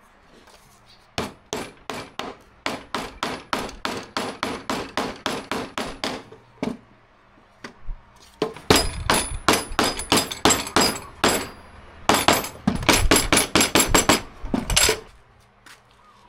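Hammer tapping a glued plywood pulley disc in quick, even blows, about three or four a second. There are two runs with a pause of a couple of seconds between them, and the second run is louder and rings brighter.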